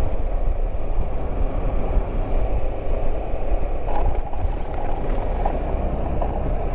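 BMW F700GS motorcycle ridden along a road: the engine runs under steady wind buffeting on the microphone, with one brief click about four seconds in.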